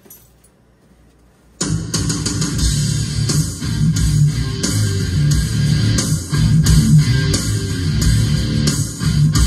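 Guitar music with bass and drums playing through a Yamaha MS60S 8-inch monitor speaker, starting abruptly about a second and a half in after a quiet moment. This is the speaker's playback test after its worn-out surround was replaced.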